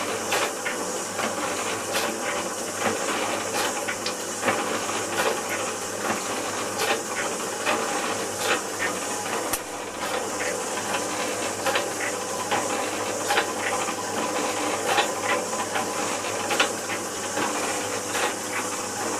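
MacEwans LBG100 belt-driven piston bore pump running under its electric motor, pumping up pressure in the tank after a new top leather washer: a steady hiss with frequent irregular clicks and knocks.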